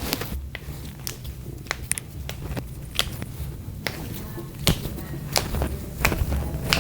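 A string of sharp, irregularly spaced clicks and pops, about one or two a second, from a chiropractic adjustment, over low background music.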